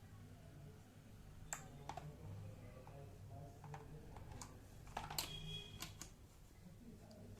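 A few light, irregular plastic clicks and knocks from a mechanical keyboard and its ergonomic wrist rest being handled and fitted together.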